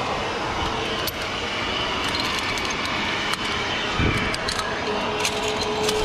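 Metal zipline hardware (carabiners and trolley gear) clinking now and then against a steady rushing noise, with a low thump about four seconds in and a thin steady hum setting in near the end.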